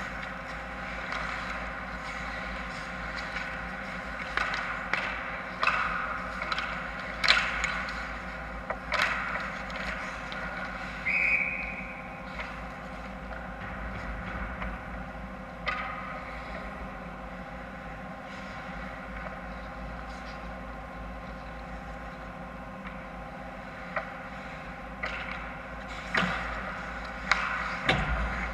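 Ice hockey play close to the net: sharp clacks of sticks and puck and the scrape of skates on ice, most of them in a cluster in the first third and again near the end, over the steady mechanical hum of an indoor rink.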